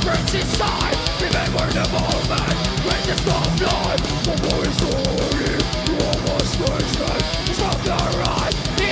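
Groove metal band playing live: heavily distorted electric guitars over a rapid, steady kick-drum beat.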